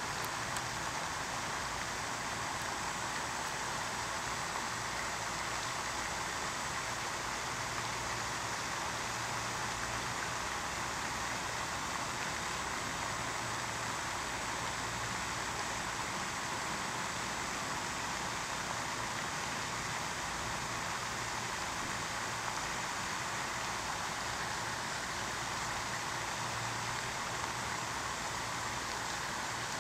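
Steady, even rush of water splashing along a pond's shoreline.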